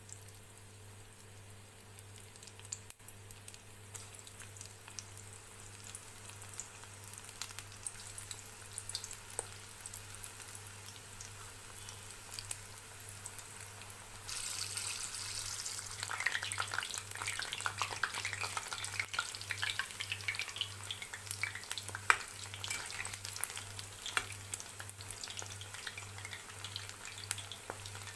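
Gram-flour-battered vegetable pakoras deep-frying in hot oil: a steady sizzle full of small crackling pops, which grows louder and denser about halfway through as more pakoras go into the oil.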